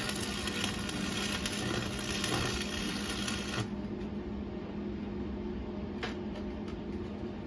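Welding arc crackling steadily on steel, stopping abruptly a little before halfway as the arc is broken, over a steady electrical hum; a single click follows later.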